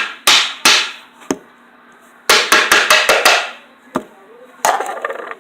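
A series of sharp slaps or smacks: two loud ones, then a quick run of four or five about two seconds in, a single click near four seconds and a short burst near the end.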